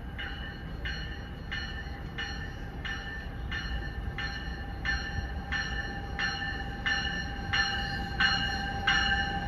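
The bell on an approaching NJ Transit push-pull train (Multilevel cab car leading) rings steadily, about three strikes every two seconds, growing louder as the train nears the platform. A steady whine and low rumble from the train sit underneath.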